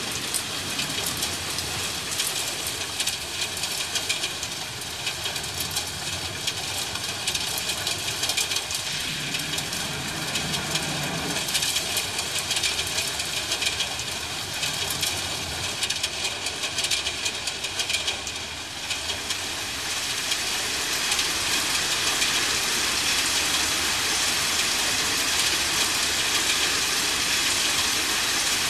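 Steady rain falling, with a brief low rumble of thunder about nine seconds in. The rain becomes a little louder and more even about twenty seconds in.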